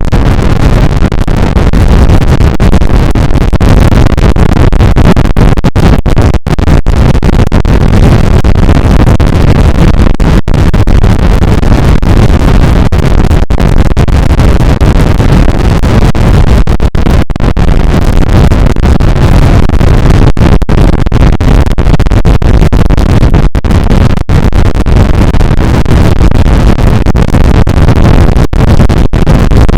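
A sneeze sample run through stacked vocoder effects until it is a harsh, continuous wall of clipped digital noise at full loudness. It is broken now and then by split-second dropouts.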